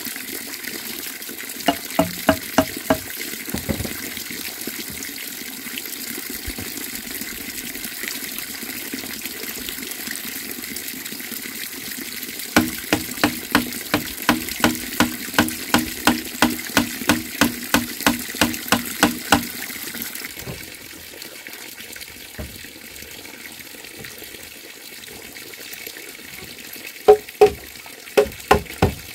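Steady rush of running water that drops away about two-thirds of the way through. Over it come runs of quick, ringing knocks on bamboo, about three a second: a short run near the start, a longer one of about seven seconds in the middle, and another near the end.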